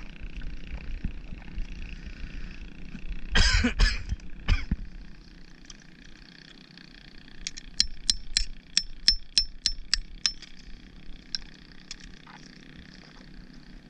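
A claw hammer tapping a clump of oyster shells: about ten sharp, ringing clicks, roughly three a second, to knock the oysters loose. A louder clattering scrape comes a few seconds before the tapping.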